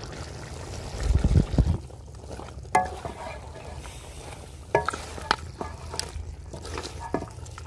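A wooden spoon stirring beef karahi in a large metal pot, knocking and scraping against the pot's sides several times with short metallic rings, over a steady sizzle. A low rumble comes about a second in.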